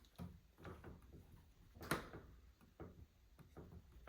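Faint scattered clicks of buttons being pressed on a Maytag washer's control panel to put it into test mode, with one sharper click about two seconds in.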